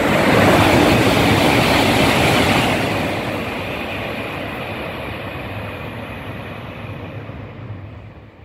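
E3-series Tsubasa Shinkansen running through the station without stopping: a loud rush of wheels and air that peaks in the first two to three seconds, then fades steadily as the train recedes.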